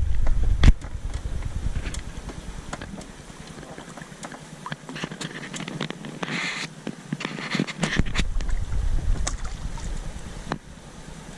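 Wind rumbling on the microphone as an inflatable raft drifts on the river. The rumble drops away for a few seconds in the middle. Scattered light knocks and a couple of short rushes of water can be heard.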